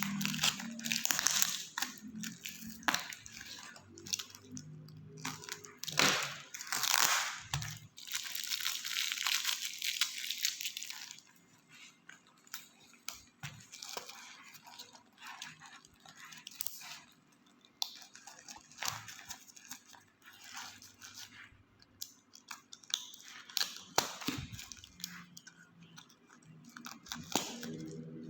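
Parcel packaging being torn open and crinkled by hand, with loud bursts of tearing through about the first eleven seconds, then quieter scattered crackles and small clicks as the contents are handled.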